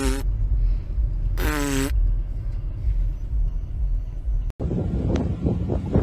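Low rumble of a car driving, heard from inside the cabin. Two short pitched sounds break through it, one at the start and one about a second and a half in. About four and a half seconds in the sound cuts off and gives way to a rougher, noisier rumble.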